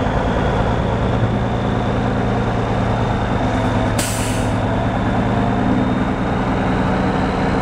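Cummins diesel engine of a 1982 Ford LTL9000 dump truck running steadily at idle. About four seconds in, a short sharp hiss of compressed air is let out from the truck's air system.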